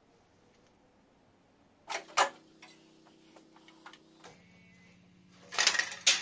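Sharp cracks and clicks of rusted sheet-steel floor pan on a Triumph Spitfire body shell being pulled and broken away, over a steady low hum. A burst of louder crunching and scraping follows near the end. The metal is so corroded that it tears out by hand.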